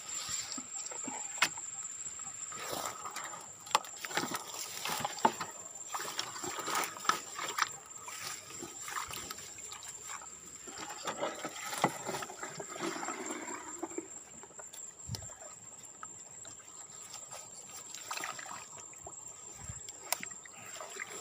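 Dry grass and reed stalks crackling and rustling as they are pushed aside, with water trickling and splashing as a hand reaches into shallow swamp water to take hold of a plastic-jug eel trap. A steady high-pitched whine sits underneath.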